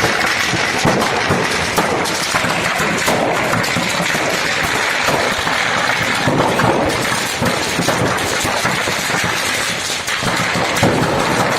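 A burning stock of firecrackers going off: a dense, unbroken rattle of cracks and bangs.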